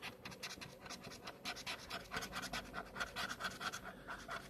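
Scratch-off lottery ticket being scratched, its coating scraped off in rapid, repeated short strokes.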